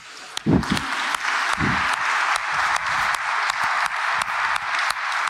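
Congregation applauding, the clapping swelling in about half a second in and then holding steady. Two low thumps sound in the first two seconds.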